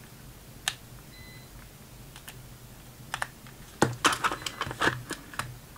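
Plastic clicks and knocks from an automatic insect sprayer's housing and mechanism being handled and fitted together. A few scattered clicks come first, then a quicker run of them in the last two seconds.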